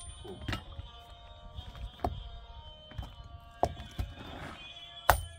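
Hand hammer striking stone: about five sharp knocks at uneven intervals, the last near the end the loudest, over background music.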